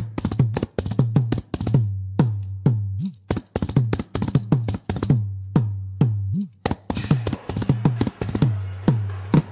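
Background music of kanjira frame drums playing a quick, uneven run of strokes. Each stroke has a deep ringing tone, and a couple of them bend in pitch.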